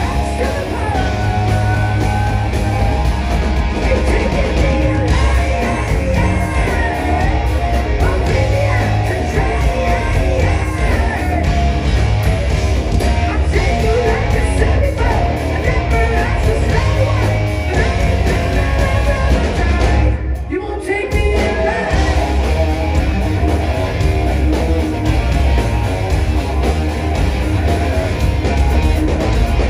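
Hard rock band playing live: electric guitars, bass and drums with a male lead singer. The band drops out for about a second roughly two-thirds of the way in, then comes back in.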